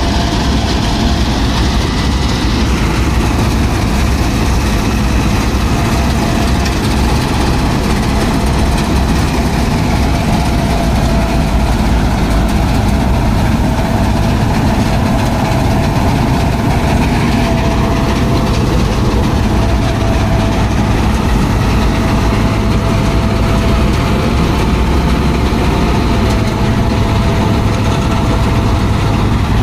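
Mahindra combine harvester running on its newly fitted Mahindra Arjun Novo 655 DI diesel engine while it drives through the paddy cutting rice. It is a steady, unbroken engine drone with a constant whine from the machine above it.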